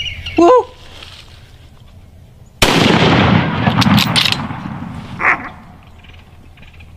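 A short call about half a second in, then a single loud rifle shot about two and a half seconds in, its report rolling away in a long echo over about two seconds.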